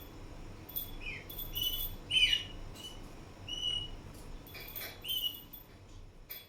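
Indian ringneck parrot making short, soft chirps, several of them falling in pitch and the loudest about two seconds in. Between them come scratchy clicks, typical of the bird grinding its beak.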